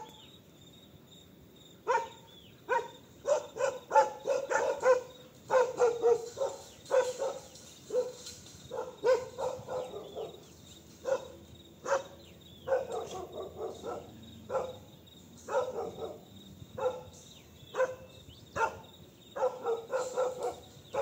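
Dogs barking repeatedly in short, irregular runs of barks, starting about two seconds in. They are barking at a bear climbing the fence.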